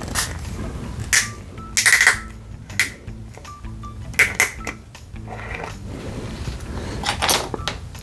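Close-miked eating sounds, about six short sharp bursts of biting and chewing, over background music with a steady beat.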